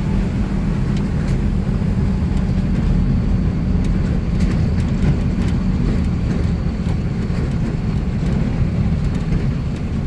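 Vehicle engine and road noise heard from inside the cab, a steady low hum on a steep downhill, with the engine kept in a low gear for the descent. A few faint ticks are heard over it.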